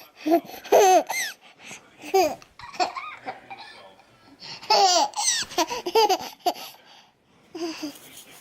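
A toddler laughing and squealing in short, high-pitched bursts, several in a row, with a short pause near the end.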